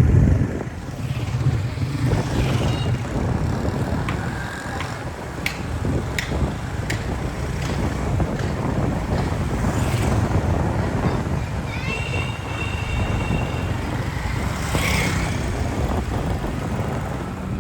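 Busy road traffic: vehicle engines running steadily, with a few sharp clicks and brief high tones over them.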